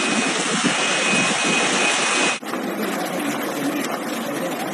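Steady roar of storm wind and rain on the microphone. It breaks off abruptly a little over two seconds in and goes on slightly quieter as a second recording of wind-driven rain.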